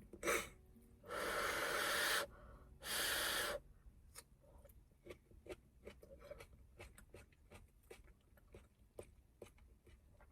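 Two long, forceful blows of breath, after a short puff, followed by many soft small clicks and taps.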